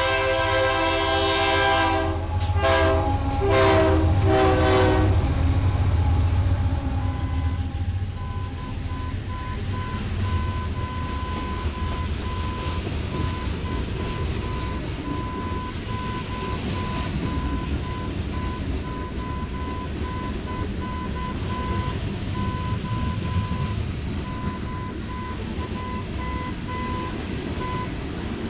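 Ferromex diesel freight locomotive sounding its multi-chime air horn: a long chord, then several short blasts a few seconds in. The train then rolls past with a steady low rumble, and a repeating high tone sets in after about eight seconds.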